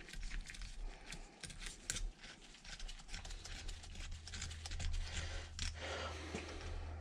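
Light metallic scraping and clicking as a hand tap in a T-handle wrench is worked through the rusty threaded holes of a lathe chuck, cleaning up the threads. The steel tool also knocks and clicks as it is handled against the chuck. A steady low hum runs underneath.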